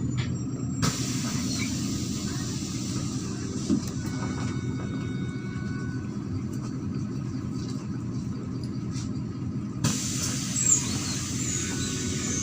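MAZ-103 city bus under way, heard from inside the cabin: a steady engine drone and road noise. A hiss in the high range grows sharply louder about a second in and again near the end.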